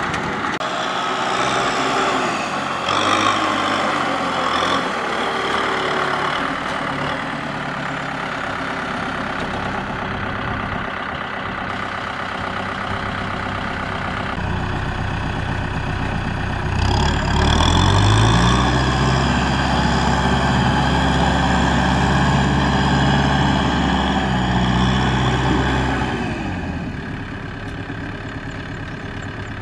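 Kubota M6040SU tractor's diesel engine running. About halfway through it revs up with a rising whine and holds high revs under load while the tractor is bogged in deep mud, then drops back near the end.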